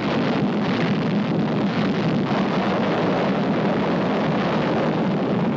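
Nuclear explosion rumble laid over the Trinity test footage: a deep, even rushing noise that cuts in suddenly and holds steady without a break.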